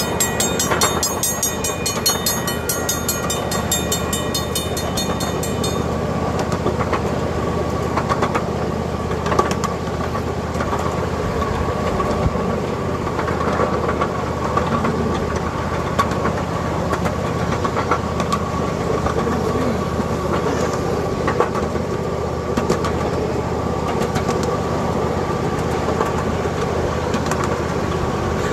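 Miniature ride-on train rolling along its track: a steady running noise with scattered clicks of the wheels over the rail joints. A railroad crossing signal's bell rings rapidly for about the first six seconds, then stops.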